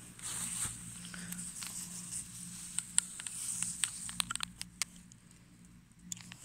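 Rustling and light crunching of grass as a Shiba Inu on a leash sniffs and then trots through it, with a run of sharp little clicks and snaps between about three and five seconds in. A low steady hum sits underneath.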